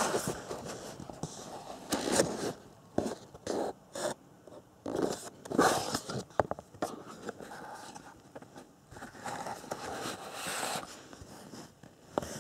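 A small cardboard box being handled and opened by hand, and a motor lifted out of its foam insert: irregular scrapes, rustles and light knocks.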